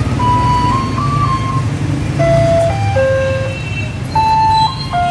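A simple electronic tune of single held notes stepping up and down, like a jingle, over a steady low rumble.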